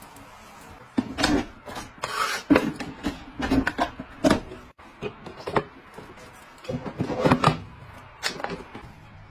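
Hard plastic kitchen gadgets being handled: an irregular string of sharp clacks, knocks and scraping rubs, starting about a second in.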